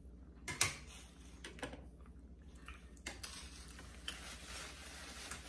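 Scattered light clicks and knocks of dishes and utensils being handled, the sharpest about half a second in.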